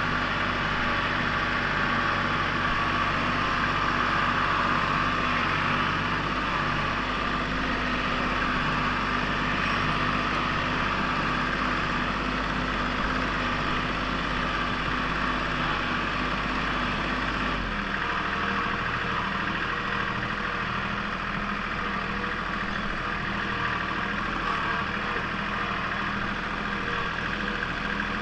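Compact tractor engine running steadily as the tractor drives along a dirt track. Its note changes about two-thirds of the way through.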